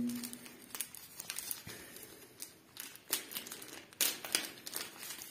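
Plastic wrapping crinkling as it is handled, in short irregular crackles that are busier about three and four seconds in.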